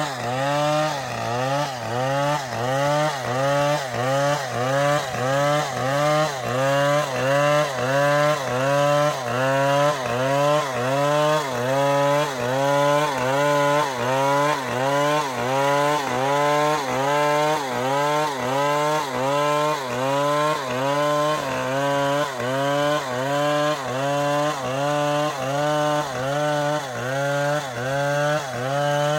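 Chainsaw running at high revs while cutting through a palm trunk. The engine pitch dips under load and recovers in an even rhythm, a bit more than once a second.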